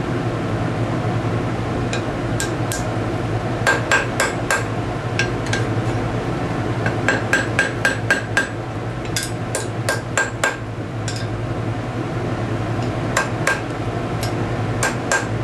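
Hand hammer striking a hot steel S-hook on a blacksmith's anvil, in several quick runs of blows with short pauses, each blow ringing brightly off the anvil. A steady low hum runs underneath.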